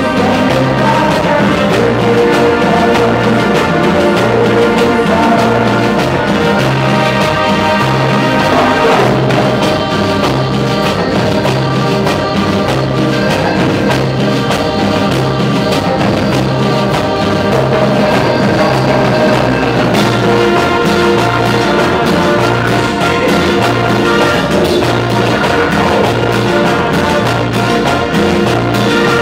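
Live cumbia band playing: trumpets and percussion over a bass line that repeats in a steady pattern.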